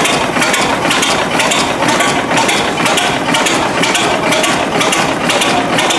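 Vintage patent model of a Snow-style tandem double-acting gas engine running, its valve gear clicking in a steady, even rhythm, about four or five clicks a second.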